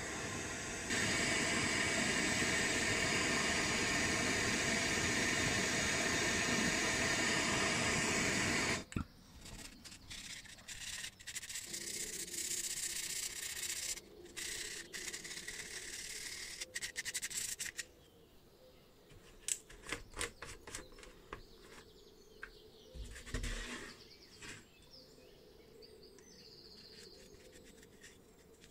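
Gas torch flame hissing steadily while it heats the metal lamp body to flow solder, growing louder about a second in and stopping abruptly about nine seconds in. After that comes intermittent rubbing and scraping of the metal part being handled and wiped, with scattered light clicks.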